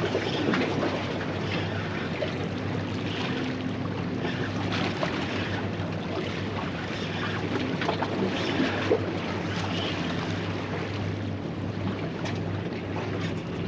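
Water washing against jetty rocks and wind on the microphone, over the steady drone of a boat engine out on the pass.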